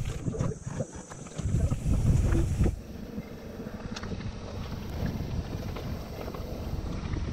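Giant Anthem mountain bike being ridden on a trail: tyre and trail rumble with wind buffeting the chest-mounted camera's microphone, loudest for about a second around two seconds in, with scattered small rattles.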